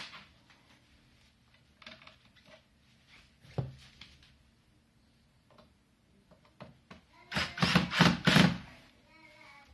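Cordless drill-driver running in a few short bursts about seven seconds in, driving a screw into the plastic housing of a wall-mounted recuperator unit. Before it, light handling clicks and one thump.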